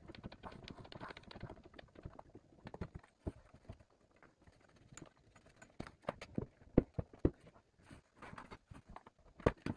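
Irregular knocks, taps and clunks of pipework and an old unit casing being worked loose by hand, with a few sharper knocks about seven seconds in and again near the end.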